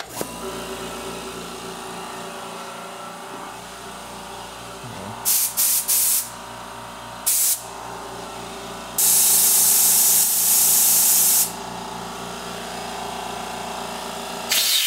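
California Air Tools 2 HP ultra-quiet oil-free air compressor switching on and running steadily. Compressed air is let out of the hose's hand tool in hissing blasts: a few short ones a little after five seconds in, another about halfway, a longer one of about two seconds after that, and one more at the end.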